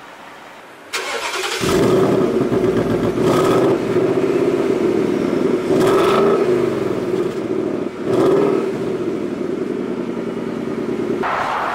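Ford Mustang GT's 5.0-litre V8 starting about a second in, heard from its quad exhaust tips. It catches and runs loud, is blipped three times, and settles to a steady idle. Near the end the engine gives way to a rushing noise.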